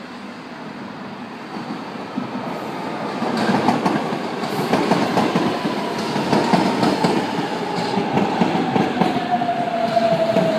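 São Paulo Metro train passing, getting louder from about three seconds in. Its wheels click rhythmically over the rail joints, with a whine that slowly falls in pitch.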